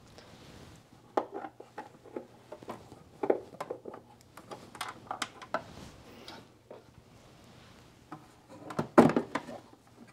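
Scattered light clicks, taps and rubbing of hands handling the plastic fan cover and housing of a Zehnder ComfoAir 200 heat recovery ventilator, with a cluster of louder knocks about nine seconds in.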